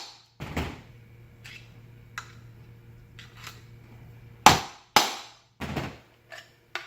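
Sharp metal whacks on a screwdriver set in the holes of a ring fan motor's housing, knocking the motor apart. There are four loud strikes, one about half a second in and three close together near the end, with lighter taps between.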